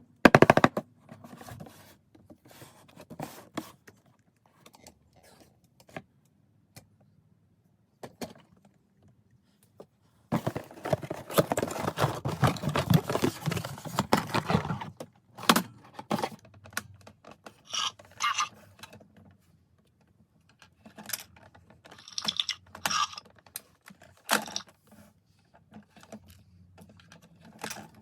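Toy packaging being handled and opened: scattered clicks, taps and knocks of cardboard and plastic, with a dense stretch of rustling of about five seconds near the middle.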